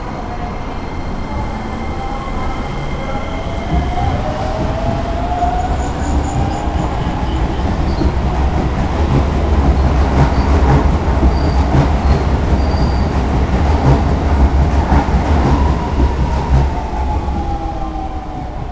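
Electric commuter trains pulling out of a station: a Hokuso Railway 9200-series train and a Keikyu 1500-series train. A traction-motor whine rises in pitch as a train accelerates, and the deep rumble of wheels on the rails grows loud as the cars pass, from about four to sixteen seconds in. Near the end another motor whine glides down in pitch.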